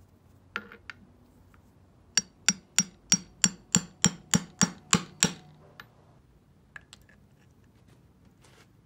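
Hammer tapping a deep socket to drive the kickstart shaft oil seal into a Honda CT70 engine's aluminium side cover. About eleven sharp, ringing metal strikes come at about three a second, starting about two seconds in, after two light knocks as the socket is set in place.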